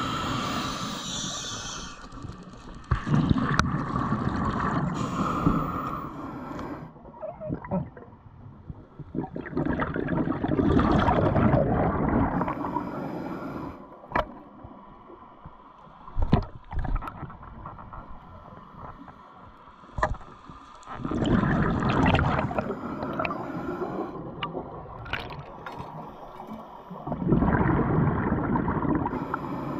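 Scuba diver breathing through a regulator underwater: bubbling exhalations come in bursts every several seconds. A few sharp clicks fall in the quieter gaps between them.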